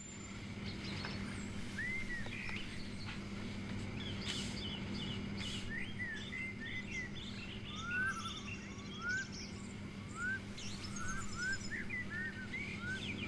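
Small birds chirping: many short rising chirps, coming thick and fast from about five seconds in, over a steady low hum.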